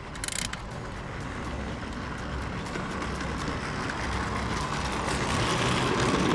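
Ride-on miniature train running along the track and growing steadily louder as it approaches, with rapid light clicking from the wheels.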